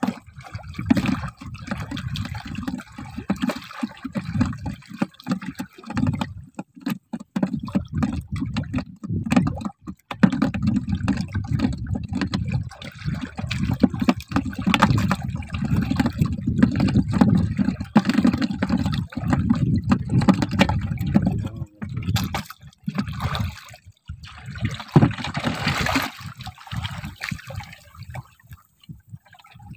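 Sea water sloshing and lapping against the hull of a small outrigger boat, coming in uneven surges.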